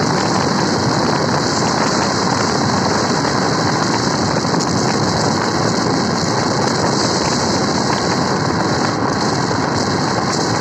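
Steady wind and road noise of a taxi driving at speed: a loud, even rush with no engine note standing out.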